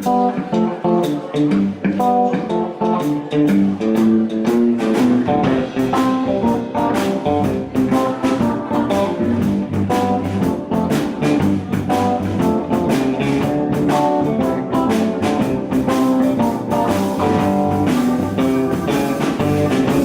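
Live blues band playing an instrumental intro led by guitar, with a steady beat.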